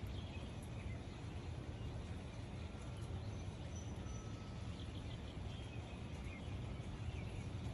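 Outdoor ambience in light rain: a steady soft hiss with a low rumble underneath, and a few faint bird chirps about three to four seconds in.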